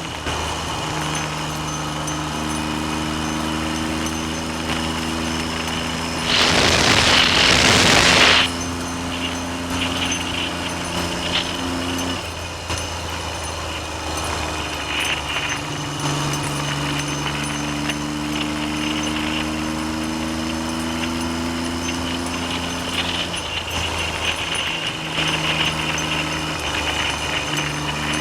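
Triumph Trident three-cylinder motorcycle engine running on the road, its note shifting in steps several times, with wind noise over the microphone throughout. A loud rushing noise swells for about two seconds some six seconds in.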